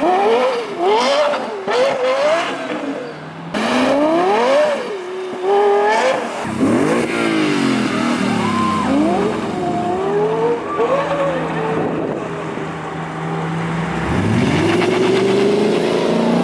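A Lexus LFA's V10 revs in quick rising and falling sweeps. About six seconds in, a Lexus RC F's 5.0-litre V8 takes over: it revs, settles, then gives one long rising pull as it accelerates away.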